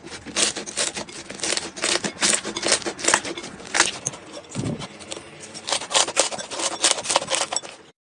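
Slime being squeezed and worked by hand, giving dense, irregular crackling and popping clicks, with a brief low thud about halfway through; it cuts off suddenly near the end.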